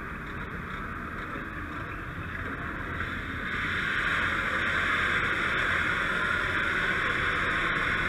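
Steady hiss of a fire hose line discharging firefighting foam onto a burnt truck's wheel and undercarriage, with a low rumble beneath. The hiss grows louder about three and a half seconds in and then holds steady.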